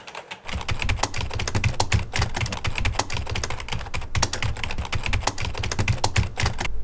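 Fast typing on a computer keyboard: a quick, uneven run of key clicks starting about half a second in, with a brief pause about four seconds in.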